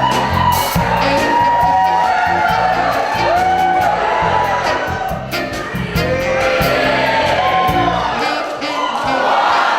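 Live band playing upbeat music with a steady low beat, with voices from the audience whooping over it.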